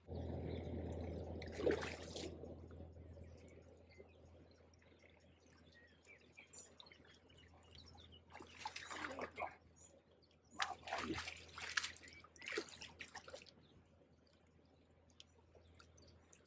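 A hooked barbel splashing and thrashing at the surface of a fast river during the fight: one short splash near the start, then several bursts of splashing in the second half.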